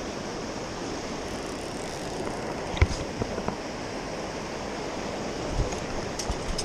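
Fast, shallow river water rushing steadily close to the microphone, with a single knock about three seconds in.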